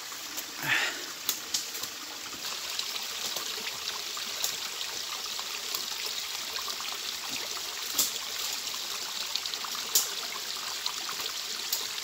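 A small forest stream trickling steadily over stones, with scattered sharp clicks and knocks of hikers' footsteps and a trekking pole on the rocks. A louder knock comes right at the end.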